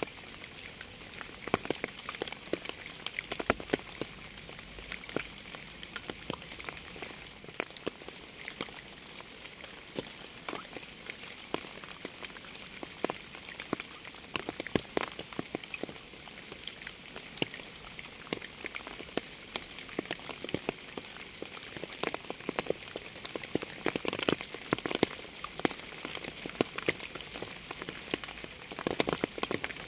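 Steady rain, with many separate drops striking at irregular moments over a constant hiss.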